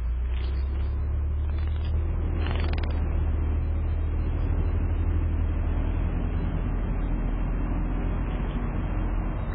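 Sparrow bathing in a shallow bird bath, with a few brief splashes in the first three seconds, over a steady low rumble.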